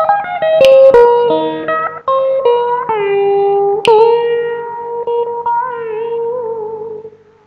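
Electric guitar played through a Zoom multi-effects pedal: a single-note lead line of held notes with bends and vibrato. The last note fades out near the end.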